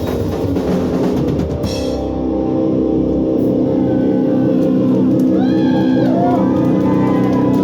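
Hardcore punk band playing live: pounding drums and cymbals under distorted guitar, then the drums stop about two and a half seconds in and the distorted guitar rings on alone, with high notes sliding up and down in pitch.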